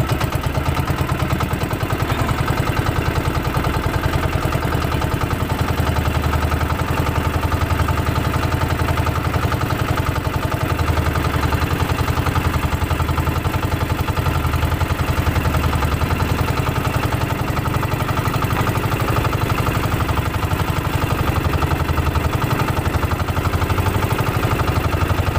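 Small outrigger fishing boat's engine running steadily with a rapid, even beat while the boat is under way.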